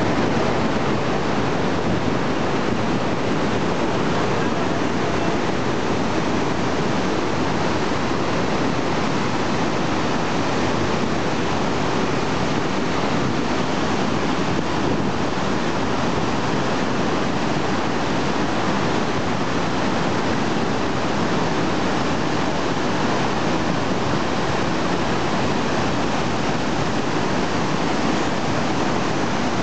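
Rhine Falls, a large river waterfall: whitewater rushing and churning over rocks in a steady, unbroken roar.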